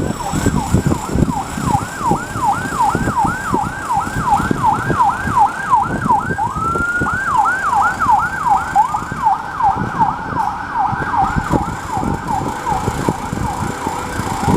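Israeli ambulance siren blaring in a fast yelp, about three rising sweeps a second. About halfway through it breaks into one slower rising tone, then the yelp resumes.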